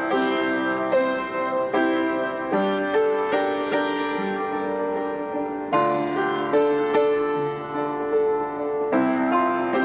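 Background instrumental music carried by a keyboard instrument, a slow melody of sustained notes struck one after another.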